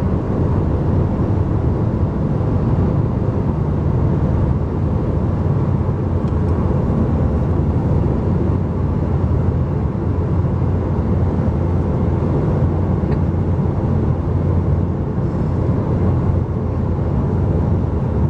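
Steady road noise inside a moving car's cabin: tyres and wind at speed, with a heavy low rumble.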